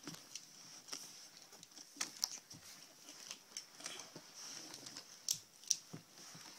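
Scattered light clicks and rustles from hands handling a small plastic toy, with a few sharper ticks about two seconds in and again late.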